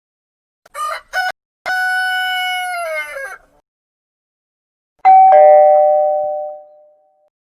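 Rooster crowing: two short calls, then one long crow that drops in pitch at the end. A two-note ding-dong doorbell chime follows, higher note then lower, ringing out over about two seconds.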